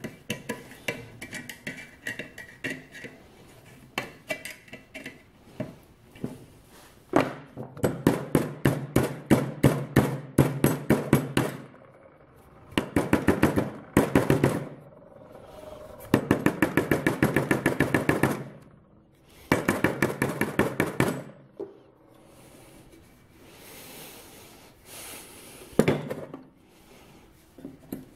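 A hammer striking the end of a steel exhaust pipe over a socket, working the pipe end out into a flange, in four runs of quick, even blows at about five a second. Before the hammering come lighter scattered clicks of metal handling.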